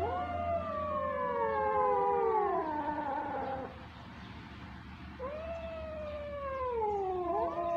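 Young kittens meowing: long, drawn-out meows that rise quickly and then slide slowly down in pitch. The first lasts about three and a half seconds, a second begins about five seconds in, and a third starts near the end.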